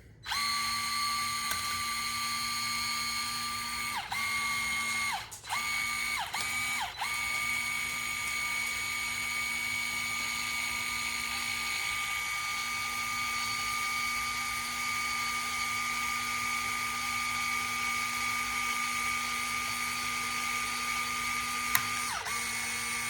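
A small electric motor whines steadily at one pitch. It is stopped and restarted several times about four to seven seconds in and once near the end, and its pitch dips at each stop. A powered tool is compressing the Daisy air rifle's mainspring.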